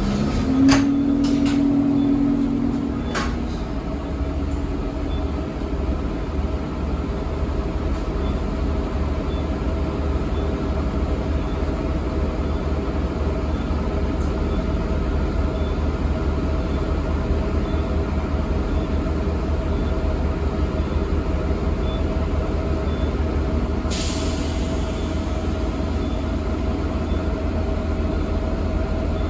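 A 2013 Eldorado National Axess transit bus heard from inside while riding: a steady engine and road drone. A few clicks and a short low tone come in the first three seconds, and a brief burst of air hiss, typical of the bus's air brakes, comes about 24 seconds in.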